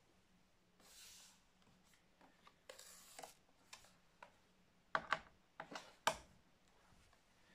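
Faint scraping of a small screwdriver turning screws out of a laptop's plastic bottom case, then a cluster of sharp clicks about five to six seconds in as screws and tool knock against the casing.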